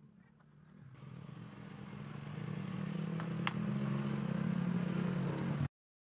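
A motor vehicle's engine humming and growing steadily louder as it draws nearer, then cut off abruptly a little before the end.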